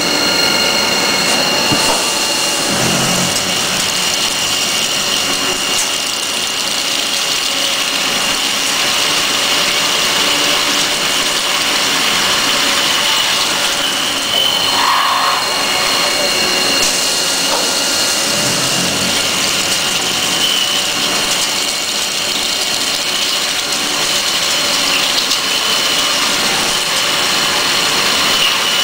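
A CNC drilling center's spindle driving a 24 mm through-coolant carbide drill at 1460 rpm into a 64 mm stack of metal plates. The cutting noise is steady, with a high whine of two steady tones over the hiss of coolant spraying from the drill tip.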